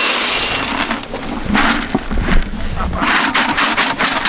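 Rustling and crunching noise, followed from about three seconds in by a fast run of crisp ticks, like footsteps crunching over dry winter grass.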